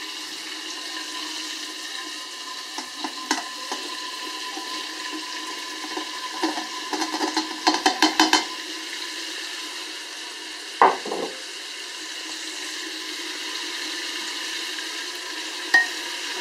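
Pork ribs frying with a steady sizzle in an Afghan kazan, with a quick run of clatters about six to eight seconds in as onion, carrot and garlic are tipped in from a plate, and a single knock about eleven seconds in.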